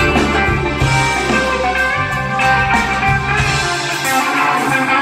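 Live rock band playing, guitars over bass guitar and a drum kit.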